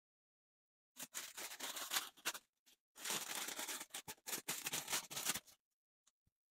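Plastic packaging bag crinkling and rustling as a tinted motorcycle helmet visor is handled and slid out of it. It starts about a second in, pauses briefly halfway and stops shortly before the end.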